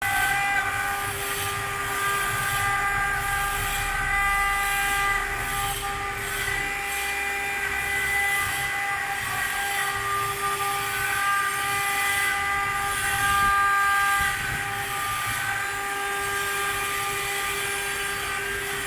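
CNC engraving machine running: a steady, high spindle whine made of several fixed tones over a low rumble, some tones dropping out and coming back every few seconds.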